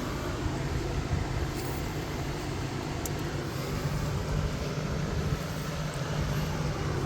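Steady low rumble of background noise, with a couple of faint short ticks.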